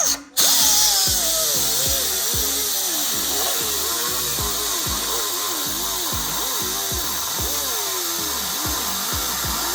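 Die grinder cutting metal, a steady high whine whose pitch sags and recovers again and again as the wheel bites and eases off.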